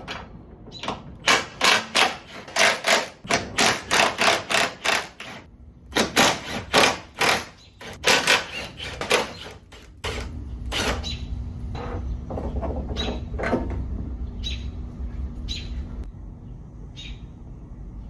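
Ratchet wrench clicking in quick runs of several clicks a second as the strut brace mounting nuts are tightened with a socket. About ten seconds in the runs give way to occasional, fainter clicks over a low steady hum.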